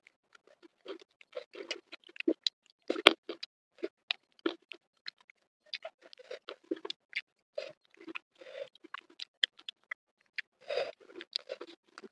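Close-miked chewing of crispy flour-battered fried tuna and rice: a steady run of irregular crunches and wet mouth clicks, with fingers picking at the crisp batter.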